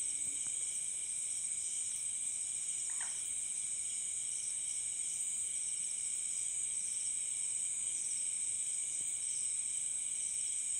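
A steady chorus of crickets and other night insects: a dense, high-pitched trilling at several pitches at once, unchanging throughout.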